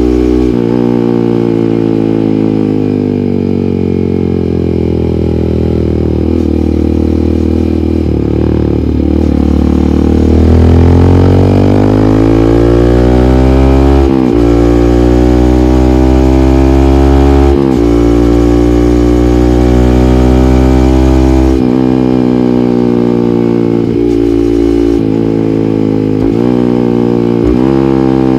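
Yamaha MT-15's 155 cc single-cylinder engine through an aftermarket SC Project muffler while riding. The engine speed falls off for several seconds, then rises through the gears with two quick upshift breaks, holds briefly, and winds down again near the end.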